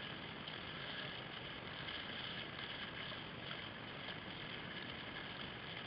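Steady rush of water with faint paddle splashes as an old Dancer whitewater kayak is paddled across choppy water.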